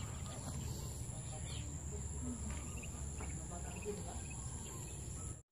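Outdoor rural ambience: a steady high-pitched insect drone over a low rumble of wind or handling noise, with a few faint distant sounds. The sound cuts out for a moment near the end.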